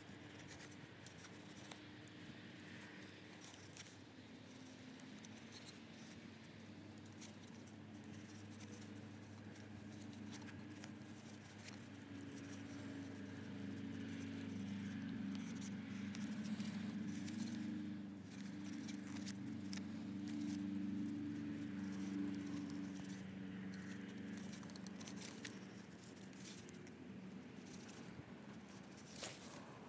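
Faint rustling and small clicks of cord being wrapped and pulled tight around the wooden haft of a stone axe. A low drone swells through the middle and fades again.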